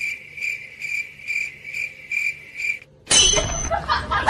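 Cricket-chirp sound effect: short, high chirps repeating evenly about twice a second, the comic 'crickets' cue for an awkward silence. About three seconds in it stops and a loud burst of laughter takes over.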